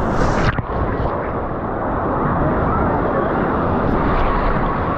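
Wave-pool surf rushing and breaking during a big wave cycle, a steady loud wash of water, with a crowd of swimmers' voices mixed in.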